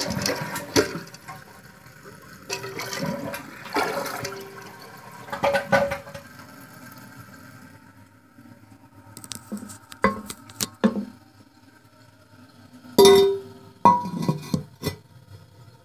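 Water rushing in a Kohler Wellworth toilet's tank over the first few seconds, then scattered knocks and clinks as the tank's parts and porcelain lid are handled, the loudest a clunk with a short ring about thirteen seconds in.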